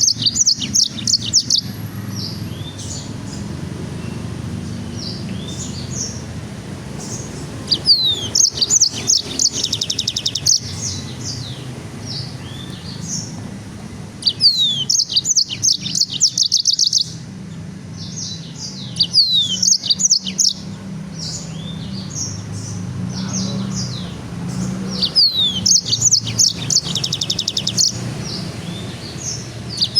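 A songbird singing repeated phrases, each a falling whistle followed by a fast high trill, about every five to six seconds, with shorter chirps in between, over a low steady hum.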